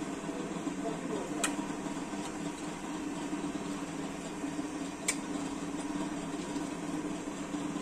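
Steady background machine hum with two short metallic clicks, about a second and a half in and again about five seconds in, from a hand tool working at an engine's flywheel.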